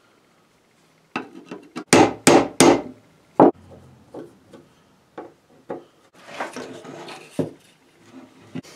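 Knocks and taps of metal on wood as an old muzzleloader rifle's walnut-free original stock is taken apart, its pins and fittings worked out with a punch. Three sharp knocks come a little after two seconds in and another shortly after, then lighter taps and a stretch of scraping and rubbing.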